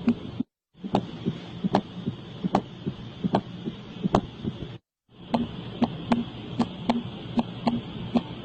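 Heart sounds: a heartbeat of sharp, clicking beats repeating a little under a second apart over steady hiss. It cuts out twice into brief silence.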